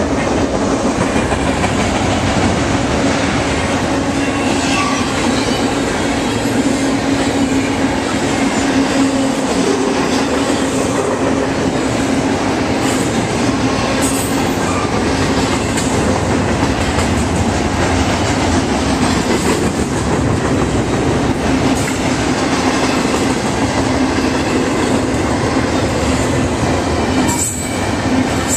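Double-stack container cars of a freight train rolling past close by: a loud, steady rumble of steel wheels on rail with a steady droning tone and a few sharp clicks.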